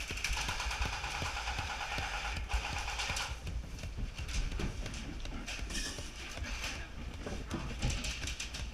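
Airsoft guns firing: a buzzing full-auto burst for about the first three seconds, then scattered sharp snaps and clicks of further shots and BB hits.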